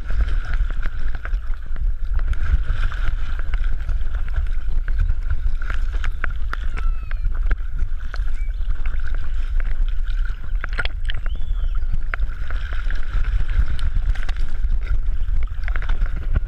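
Water sloshing and gurgling around a dog-mounted GoPro as the dog swims, a heavy rumble with scattered splash clicks and a steady hum underneath.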